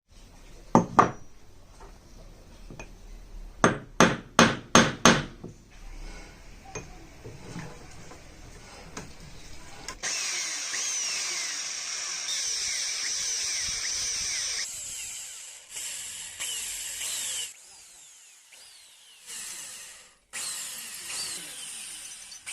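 Workshop tools on a small metal part: a couple of sharp knocks about a second in and a quick run of five more a few seconds later. Then a power tool runs with a steady high hiss from about halfway through, in several abruptly cut stretches.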